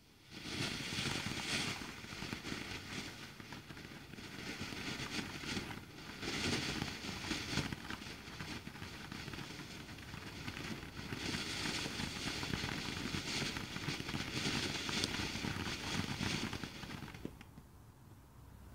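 Ground fountain firework spraying sparks: a steady hiss that rises and falls and dies away near the end as it burns out.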